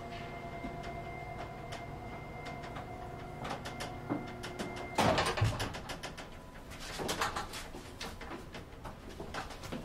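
1919 Graves freight elevator running with a steady, many-pitched motor hum as the car travels, then cutting off about halfway with a loud clunk as the car stops at a floor. Rattling and clicks of the car's metal work follow.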